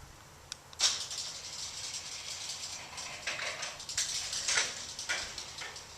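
Garage door moving along its track, rollers and panels rattling, with irregular clacks after a sudden start about a second in.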